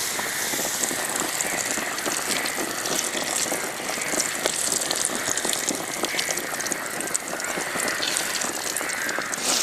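Batter-coated bread pakoda deep-frying in hot oil in a kadai: a steady sizzle full of fine crackles.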